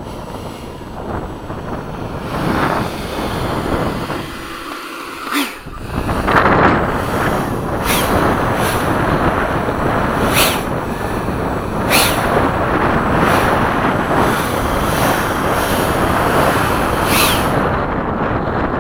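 Strong wind buffeting the microphone in gusts, a loud rushing noise that drops briefly about five seconds in and then comes back louder.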